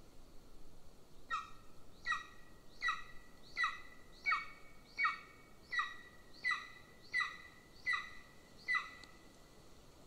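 Golden eagle calling: a series of eleven short notes, each falling in pitch, evenly spaced at a little over one a second, starting about a second in and stopping near the end.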